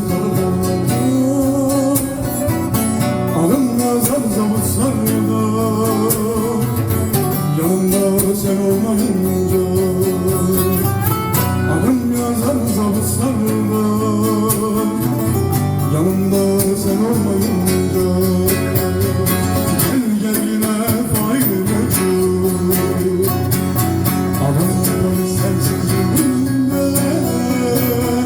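A man singing a Turkish song with vibrato over a plucked guitar accompaniment.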